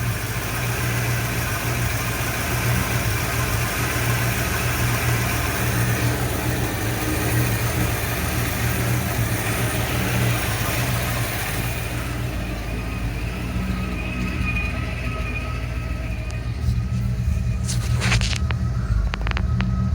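1979 Ford F100's 302 V8 idling at about 850 rpm, choppy and uneven: the rough idle that the owner puts down to an aftermarket carburetor, possible vacuum leaks or a timing that is probably off. A few sharp clicks come near the end.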